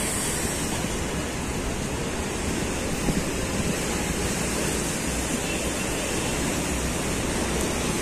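Heavy surf: high waves breaking and washing over the rocks and stone blocks at the water's edge, a steady rushing noise.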